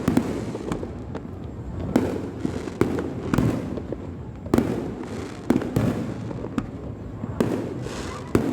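Aerial fireworks display: a steady run of booming shell bursts, about one or two a second, over continuous rumble and crackle.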